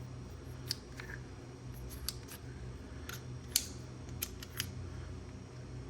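Small sharp clicks and taps, about a dozen at uneven intervals, from handling a hex-drive bit toolkit and its small driver bits, over a low steady hum.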